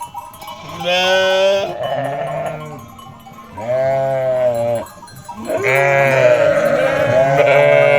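Sheep bleating: four long, wavering bleats, the last two and a half seconds holding overlapping calls from more than one animal.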